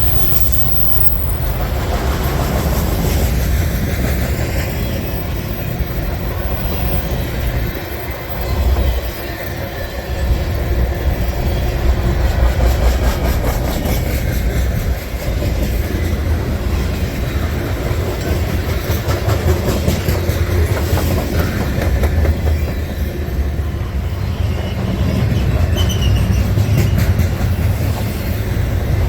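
Freight cars of a long mixed manifest freight train rolling past at speed, a steady loud rumble with rapid clickety-clack of the wheels over the rail.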